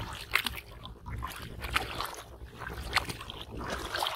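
Hands splashing and churning in shallow, muddy water, with several sharp splashes at irregular intervals over a low steady rumble.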